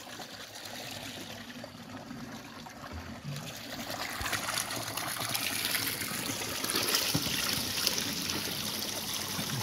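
Water running from a stone public fountain's metal spout and splashing into a plastic bottle being filled; a steady trickle that gets louder from about three and a half seconds in.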